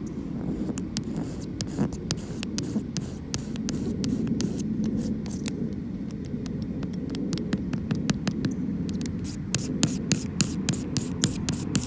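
Excess cured windshield-repair resin being scraped off the glass: many short, sharp scraping strokes that come faster and louder near the end, over a steady low hum.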